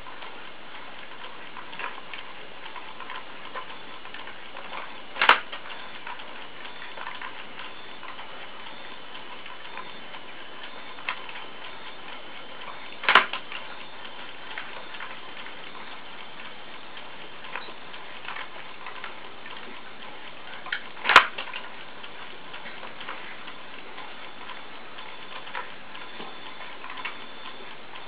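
Wooden magician automaton's mechanism working: a steady run of light ticking and clicking, broken three times by a sharp clack, about every eight seconds.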